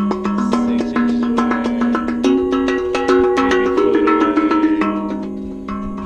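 Kaizen steel tongue drum in G/G# played with the hands: quick runs of struck notes on its tongues, each ringing on, over a sustained low note that changes pitch a few times.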